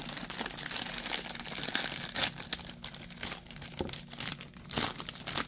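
Nestlé Drumstick ice-cream cone's wrapper crinkling and crackling as it is peeled open by hand, with a couple of louder crackles about two and five seconds in.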